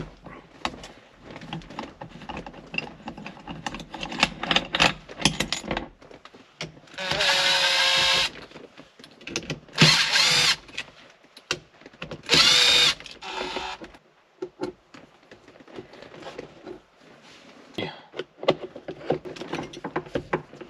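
Makita 18V cordless impact driver run in three short spurts of about a second each, its motor pitch sliding up and down as it backs out screws. Clicks and clatter of tool handling come before and after.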